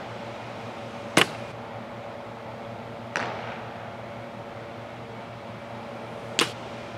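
Three sharp smacks of a baseball striking, about a second in, around three seconds in and near the end, the first the loudest, each with a short echo off the walls of a large indoor hall.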